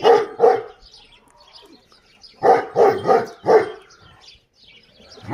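A dog barking: two barks, a pause of about two seconds, then four barks in quick succession.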